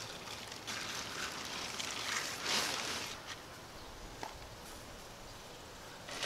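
Tent fabric rustling as the folded Wenzel Blue Ridge tent body is unrolled and spread flat on the grass, loudest about two and a half seconds in, with a few footsteps.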